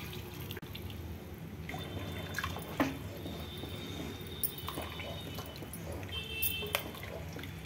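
Water pouring and splashing into a pot of rice and chicken for about the first two seconds, then a few light clicks and scrapes against the aluminium pot as the mixture is stirred.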